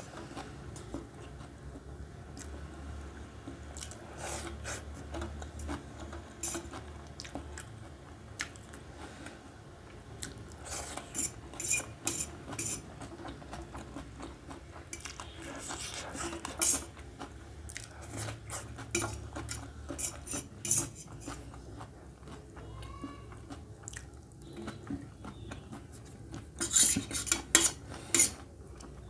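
Metal fork clinking and scraping against a steel plate in short, scattered flurries of sharp clinks, the loudest a couple of seconds before the end.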